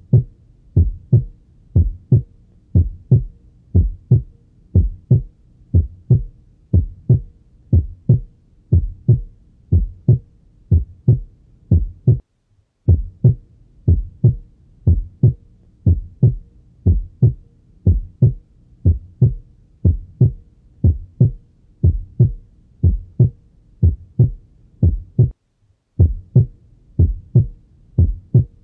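Normal human heart sounds heard through a stethoscope: a regular lub-dub, each first heart sound followed by a shorter, slightly higher-pitched second heart sound (S2), made by the aortic and pulmonary valves closing. The rhythm breaks off briefly twice.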